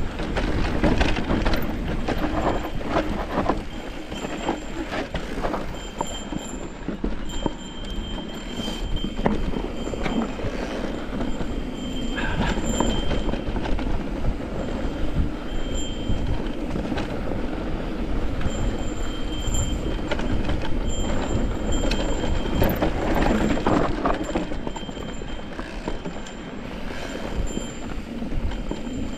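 Electric mountain bike rolling down a dirt singletrack: knobby tyres crunching over dirt and stones, with the chain and frame rattling and clattering over bumps. A thin high whine comes and goes.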